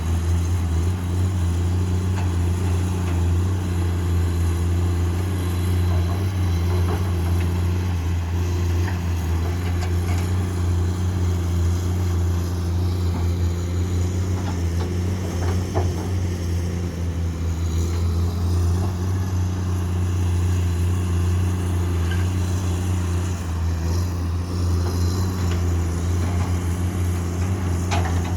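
Komatsu PC210 excavator's diesel engine running steadily with a deep drone, with a few faint knocks from work.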